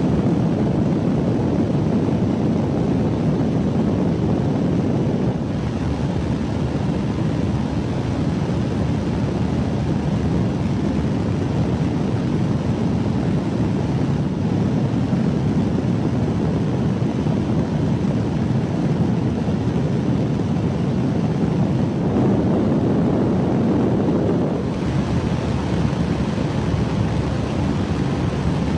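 Strong storm wind rushing in a loud, steady low roar, with sudden shifts in level about five seconds in and again near twenty-five seconds.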